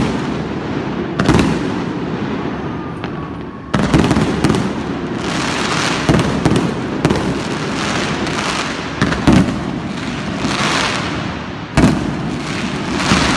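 Fireworks going off: sharp bangs about a second in, near four seconds, near nine seconds and near twelve seconds, over dense continuous crackling from about four seconds on.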